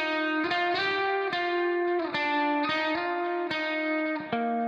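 Background music: plucked guitar notes and chords, a new note or chord struck about every half second.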